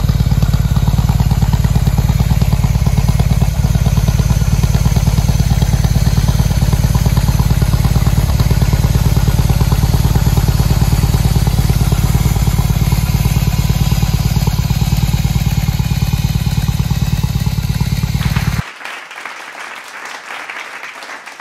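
BMW R18's big boxer twin idling steadily through a custom exhaust built to bring out the bass, with a deep, even pulse. It cuts off suddenly near the end, leaving only a faint hiss.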